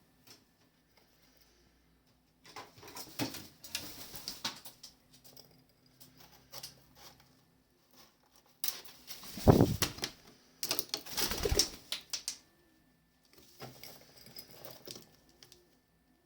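Birds flapping their wings in three bouts of rustling, fluttering flaps, the middle bout the loudest.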